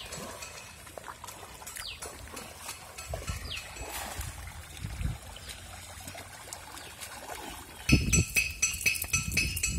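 Shallow river water sloshing and trickling as a man wades through it with a cast net. About eight seconds in it turns to louder splashing, joined by a fast, regular run of sharp ringing clicks, about three or four a second.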